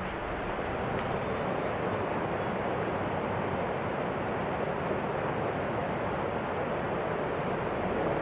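Waterfall rushing steadily: a dense, even hiss of falling water with no breaks.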